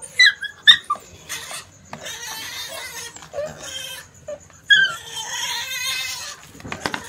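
Hungry pig squealing at feeding time: short, high squeals near the start and again about two-thirds through, with longer rough squealing between.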